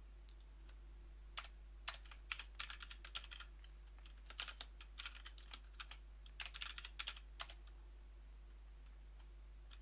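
Computer keyboard typing in short runs of keystrokes, going still for the last couple of seconds, over a faint steady hum.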